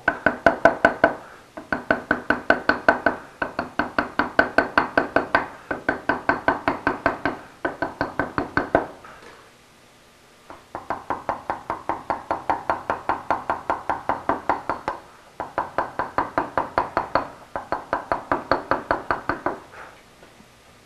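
Lignum vitae mallet striking a letter-carving chisel into stone in quick runs of light, ringing taps, about six or seven a second. Each run lasts one to two seconds with brief pauses between them and a longer pause about nine seconds in.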